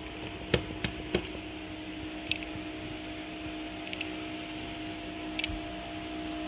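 Steady two-tone mechanical hum in a kitchen, with three sharp knocks about half a second to a second in and a few faint ticks later.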